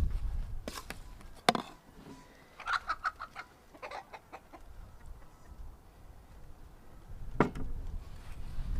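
Chickens clucking in short quick runs, with a few sharp knocks, the loudest about one and a half seconds in.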